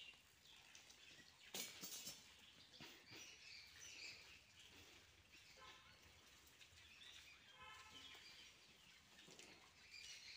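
Faint bird calls and chirps over quiet outdoor ambience, including a short rapid trill twice in the middle, with a couple of sharp knocks about one and a half and three seconds in.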